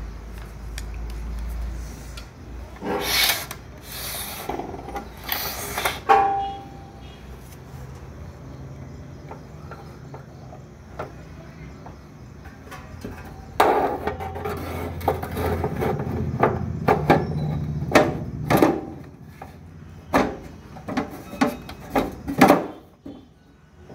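Handling noise from hands working on a metal inverter casing. A few short bursts of rubbing and scraping come first. After a quieter stretch there is a longer spell of scraping with a run of sharp knocks and clicks.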